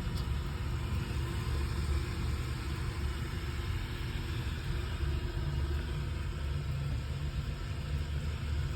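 Rowa Tango domestic water pressure booster pump running with a steady low hum and faint water-flow hiss.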